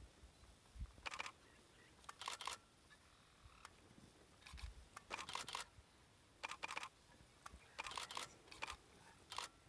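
Camera shutters firing in short rapid bursts, about ten bursts of quick clicks with quiet between them.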